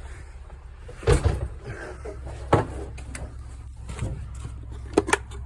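Steady low hum of running HVAC equipment, with several sharp knocks and clacks of a door being opened and shut, the loudest about a second in and a quick pair near the end.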